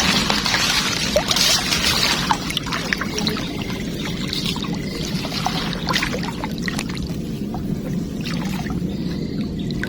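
Water pouring and splashing, heaviest in the first couple of seconds, over a steady low hum.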